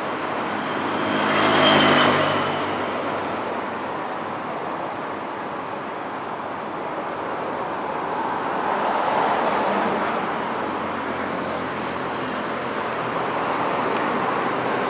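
Steady city road traffic, with one vehicle passing close by about two seconds in, its engine note rising and falling as it goes by, and milder swells of passing traffic later.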